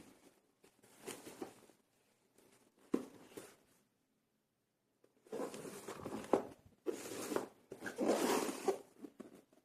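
Keystrokes on the NYK Nemesis Daemon82 wireless mechanical keyboard: quick typing in several bursts of rapid clicks, with a pause of about a second and a half midway.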